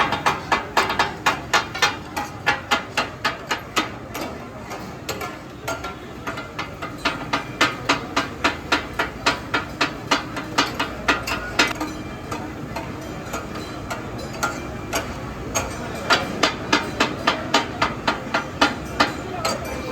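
Katakat chopping: two metal spatulas striking rapidly on a flat iron tawa as offal is cut and mixed, a sharp clanging at about three strikes a second in runs with short pauses.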